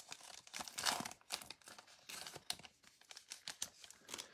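Foil wrapper of a trading-card pack crinkling and tearing as it is opened and the cards are pulled out. The sound comes in short, irregular crackles.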